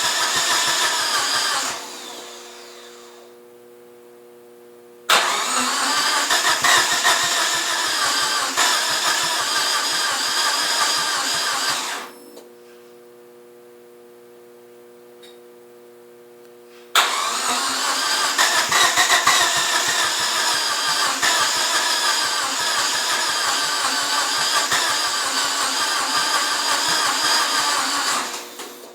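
A first-generation DSM's starter cranking the engine in three long attempts, the second lasting about seven seconds and the third about eleven, with a fast even pulse and no sign of the engine catching: the car will not start. A steady hum fills the pauses between attempts.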